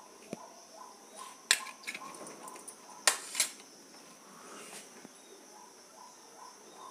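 Ghee melting in a hot nonstick kadhai on a gas burner: faint crackling over a steady low hiss, with a sharp click about a second and a half in and two more close together around three seconds in.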